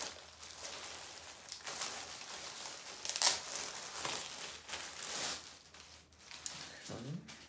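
Clear plastic bag crinkling as it is pulled open and a folded T-shirt is drawn out of it, in uneven bursts with the loudest crackle about three seconds in.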